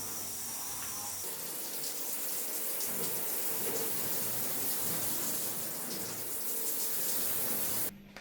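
Water running into a bathtub, rinsing it; the flow grows stronger about a second in and is shut off abruptly just before the end.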